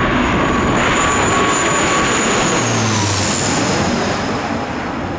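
Jet airliner passing low overhead on its landing approach: a loud engine roar with a high whine that drops in pitch as it goes past, about three seconds in.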